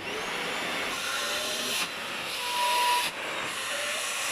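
Festool vacuum dust extractor switched on and running with a steady rushing hiss of motor and airflow, its electronic control bypassed by a substitute circuit. The level dips briefly twice, and a short whistle sounds about two and a half seconds in.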